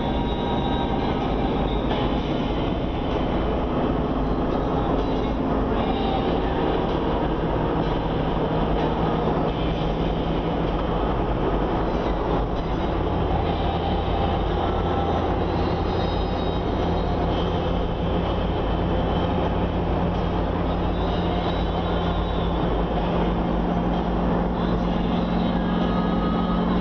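Car engine and tyre noise heard from inside the cabin while driving on asphalt, a steady rumble throughout. The engine's low hum changes pitch about halfway through and again near the end.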